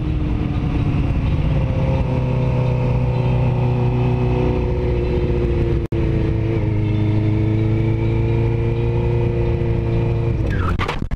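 Sport motorcycle engine running at a steady road speed, heard from the rider's helmet microphone. Its pitch sinks slowly, then holds and rises a little. The sound cuts out for an instant about six seconds in, and near the end there is a quick sweep in pitch.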